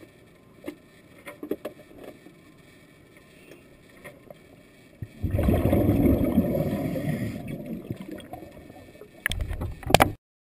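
Underwater scuba exhalation: a loud rush of bubbles from a diver's regulator lasting about three seconds and fading out. Before it come scattered light clicks and taps, and after it a few knocks, before the sound cuts off.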